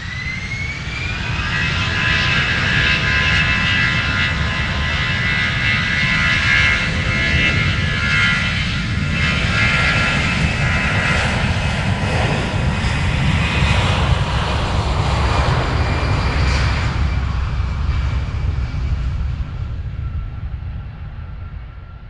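Jet airplane taking off. The engines spool up with a whine that rises over the first second or so, then run loud and steady with a deep rumble under several high whining tones. The sound fades over the last few seconds.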